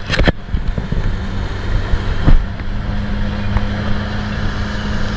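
A fishing boat's engine running steadily under way, with a steady hiss of wind and water. A few sharp knocks sound right at the start, and a single thump about two seconds in.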